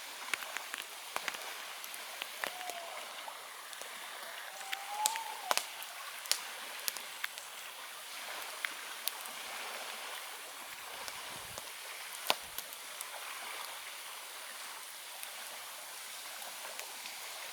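Campfire crackling, with sharp irregular pops over a steady hiss. Two brief faint whistles sound a few seconds in.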